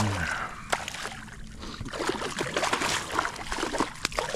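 A hooked speckled trout thrashing at the surface beside a kayak: a choppy run of short, sharp water splashes.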